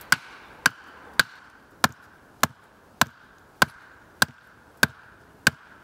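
An axe head driving a hardwood stake into the ground: about ten evenly spaced sharp knocks, a little under two a second.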